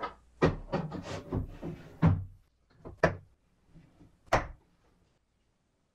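Knocks and clicks from a plywood-and-acrylic extension fence being handled on a portable table saw's rip fence, thickest in the first two seconds. Later come two sharp snaps, about one and a half seconds apart, from the small toggle clamp being worked.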